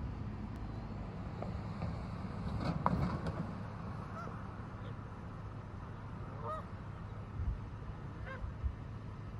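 Canada geese in a resting flock honking now and then: a cluster of calls about three seconds in, then single honks spaced a couple of seconds apart, over a steady low rumble.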